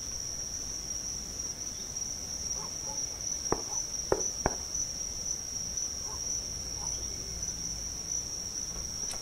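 Three knocks of a fist on a panelled front door, about three and a half seconds in, over crickets chirping steadily.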